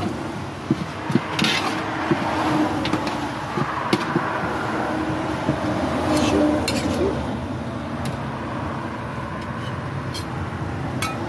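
Metal ladle and cleaver clinking and scraping against a large aluminium cooking pot while a thick stew is stirred, with scattered sharp clinks.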